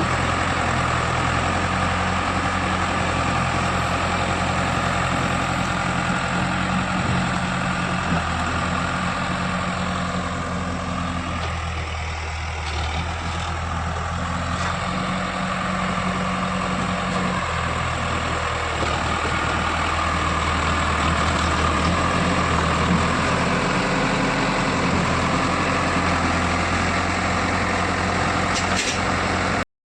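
JCB 3DX backhoe loader's diesel engine running steadily, easing slightly about twelve seconds in. The sound cuts off suddenly near the end.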